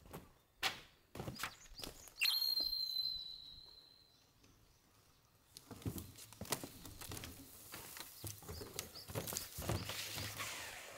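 Knocks and clatter of things being handled, with a sharp clear ringing tone about two seconds in that fades over a couple of seconds, then a long run of rustling and light knocks.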